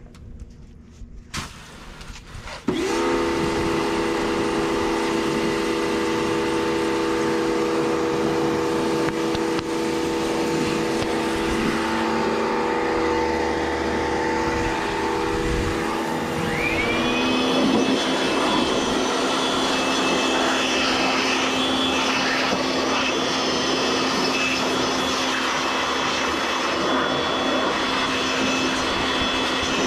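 A loud electric motor switches on about three seconds in and runs steadily with a hum of several tones over a rushing noise. About halfway through, its pitch shifts and a high whine rises, then holds.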